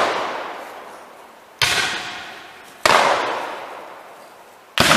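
Black-powder guns firing blanks in a reenactment skirmish: three separate shots, each followed by a long echoing tail, with the echo of a shot just before still dying away at the start.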